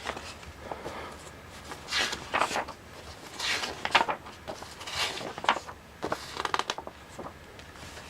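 Pages of a thick paper manual being flipped through: a string of irregular short rustles and flaps.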